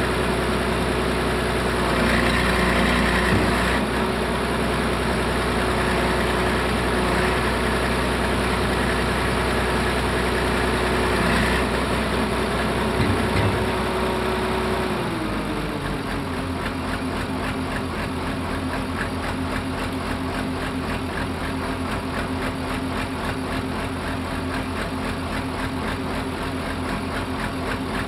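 1974 Poclain SC 150 hydraulic excavator's diesel engine running steadily at a raised speed, then dropping back about halfway through to a lower, evenly pulsing idle.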